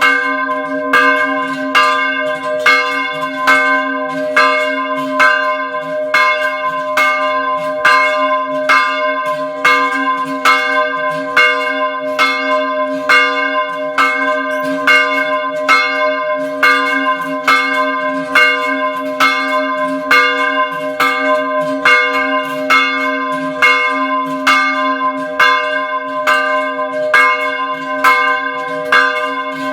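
Small church bell tolling in a quick, even rhythm, about two strokes a second, each stroke ringing on so that a steady low hum carries under the strikes.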